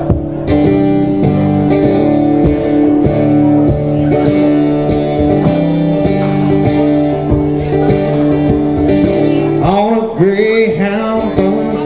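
Acoustic guitar strummed in a steady rhythm, an instrumental stretch of chords; about ten seconds in a man's voice briefly sings over it.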